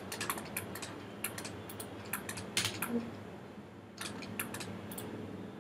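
Irregular clicking of a computer mouse and keyboard: a quick run of clicks at the start, scattered single clicks, then another small cluster about four seconds in.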